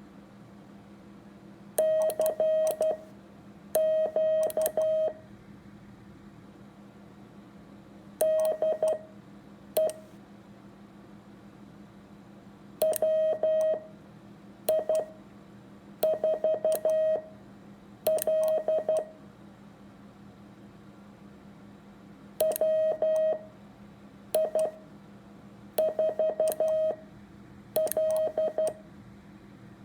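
Morse code sidetone keyed on Bencher paddles at a 13 words-a-minute key speed: groups of short and long beeps at one steady pitch, each character followed by a pause of one to three seconds because of the wide spacing between characters. A steady low hum runs underneath.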